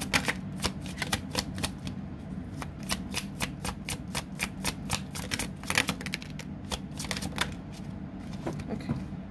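An oracle card deck being shuffled by hand: a quick, irregular run of crisp card flicks and snaps, several a second, with the odd card dropping out onto the spread.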